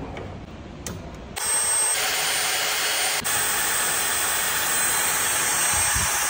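Rebuilt turbocharger spun up by air on a CIMAT turbo test bench for its boost-pressure setting: after a click about a second in, the bench starts with a sudden loud, steady rush of air and a thin high whistle.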